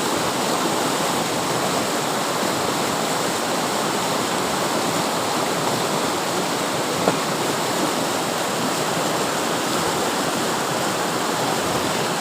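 Steady rush of flowing stream water, with one small click about seven seconds in.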